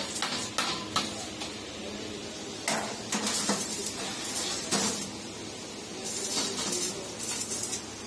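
Hammer tapping on the rim of a sheet-metal drum, several quick blows near the start, followed by scattered metallic clanks and knocks as the drum is handled and set upright.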